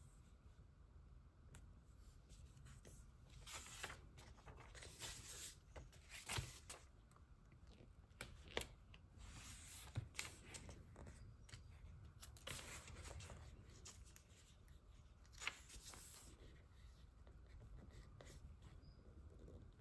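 Quiet paper handling: soft rustles and small clicks as paper stickers are peeled from sticker sheets with tweezers and pressed onto planner pages, with pages turned.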